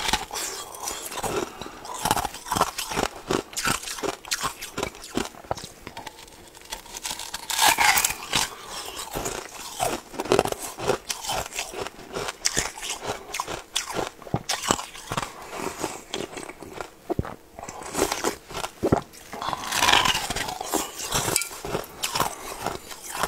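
A person biting and chewing red dragon fruit: a steady run of short mouth clicks and smacks, with several louder bites spread through.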